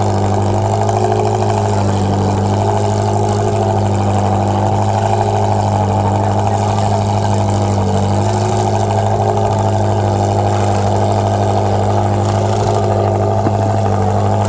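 Ferrari 360 rally car's V8 engine idling steadily while warming up, holding an even, unchanging note.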